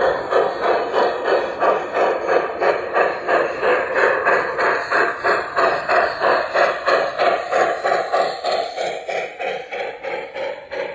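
G-scale model steam locomotive's onboard sound system chuffing in a steady rhythm, about four to five chuffs a second, as the engine runs under way with a long freight train; the chuffing fades somewhat near the end as the locomotive moves past.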